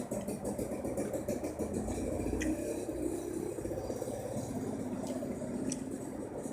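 Close-up chewing of a mouthful of fried rice, with wet mouth noises and a few sharp clicks.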